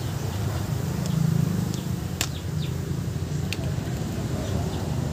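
Steady low rumble of outdoor background noise, swelling briefly about a second in, with two sharp clicks and a few faint bird chirps.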